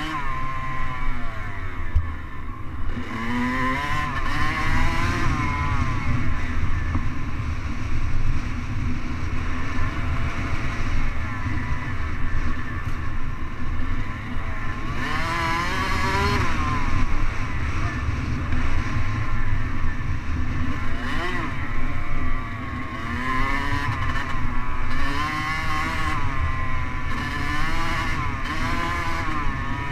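Dirt bike engine running hard along a sandy trail, its pitch rising and falling again and again as the rider works the throttle and shifts, over a dense low rumble of wind on the helmet-mounted microphone.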